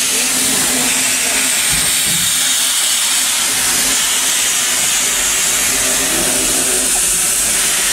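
Vintage steam tank locomotive hissing loudly and steadily as steam escapes from its cylinder drain cocks.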